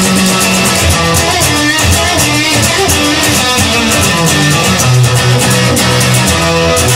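Instrumental band music with guitar: held chords over a steady beat, no singing.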